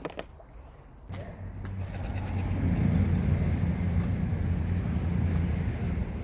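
A sharp click, then a low engine drone that starts about a second in, builds and holds steady, easing slightly near the end.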